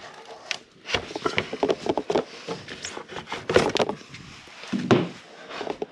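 Irregular clicks and knocks of a plastic engine vent tube and nearby hoses being handled and moved aside by hand.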